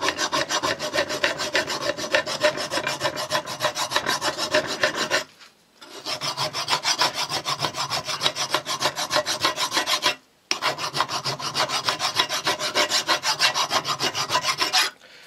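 Steel hand file rasping on a welded steel part clamped in a vise, in quick back-and-forth strokes. The filing stops briefly twice. It is filing down the weld so that a shaft will go into the part and turn freely.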